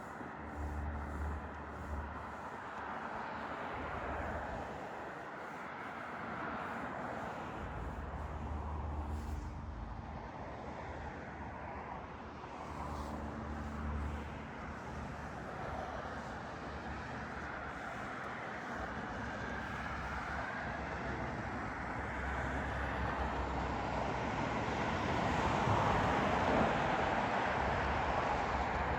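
Passenger train running, heard from inside the carriage: a steady rushing rumble with a low hum that comes and goes, growing louder over the last few seconds.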